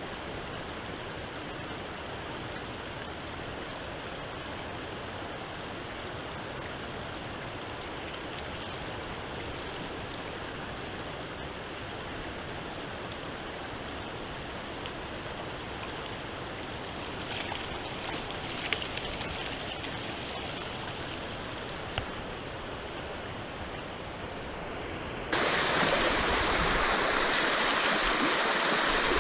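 River water flowing steadily, with a few small knocks partway through. Near the end it jumps abruptly to louder rushing water over a shallow rocky riffle.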